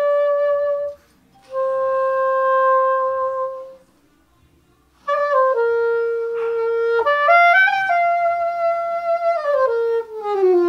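Soprano saxophone playing a slow phrase. Two held notes come with short breaks between them, then a line with a quick upward run and, near the end, a stepwise slide down through several notes: a glissando.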